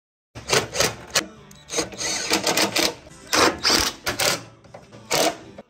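Fender flare bolts being driven into rivet nuts with a tool, in several bursts of rapid mechanical clicking and rattling that start suddenly and cut off abruptly near the end.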